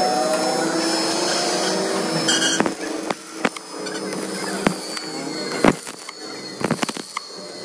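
Stick-welding arc crackling as weld is laid onto the teeth of a truck differential pinion, with sharp sporadic pops from about two and a half seconds in.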